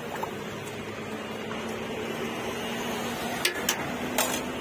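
Steady stall background with a low hum, and three sharp clinks of stainless-steel utensils in the last second or so as a pani kachori is handled over the steel pot and plate.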